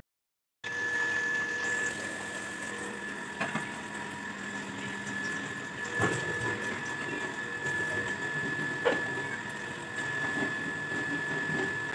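Tap water running into a steel bowl of eggs over a steady machine hum, with a few light knocks as the eggs and steel are handled.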